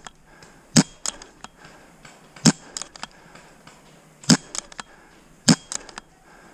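Paintball marker shots: four sharp, loud cracks one to two seconds apart, with fainter shots further off in between.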